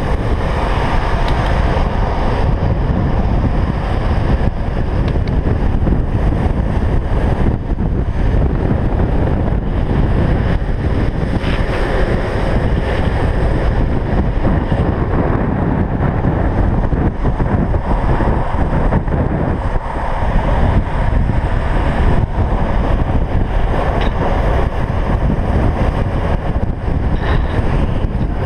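Heavy wind rush buffeting a rider-worn camera's microphone at downhill longboard speed, steady and loud throughout, with the rolling roar of skateboard wheels on asphalt beneath it.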